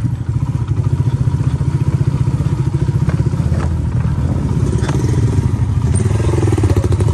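Motorcycle engine running steadily while riding, a low, fast, even pulse.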